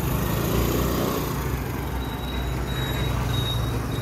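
Motor vehicle engine running steadily in street traffic, with a thin high-pitched whine coming in about halfway.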